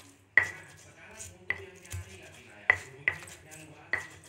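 Stone pestle pounding garlic and spices in a stone mortar to make a spice paste: sharp knocks of stone on stone, five of them unevenly spaced, with a softer one between.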